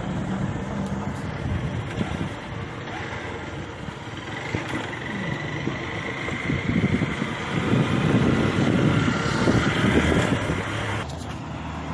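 Outdoor street noise with a motor vehicle running nearby, growing louder from about two-thirds of the way in.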